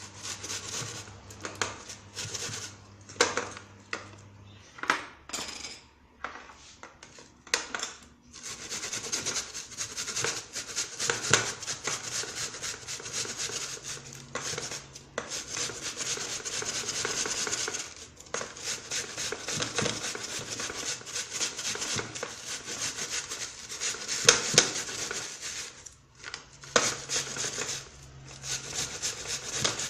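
A red onion being grated by hand on a grater: rasping strokes, sparse and irregular at first, then quick and continuous with a couple of brief pauses.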